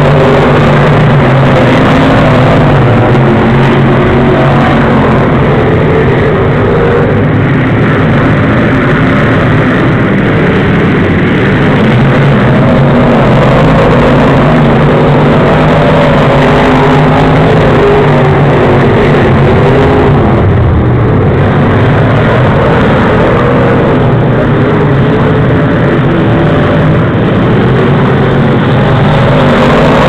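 Pro Stock race cars running laps on an oval track. The loud engine noise rises and falls in pitch as the cars go round.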